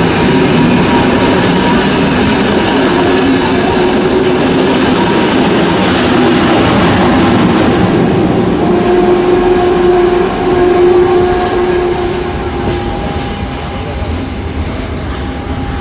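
Flåm Railway electric passenger train running past on the rails, its wheels squealing in a steady high tone for several seconds. The running noise eases off somewhat near the end.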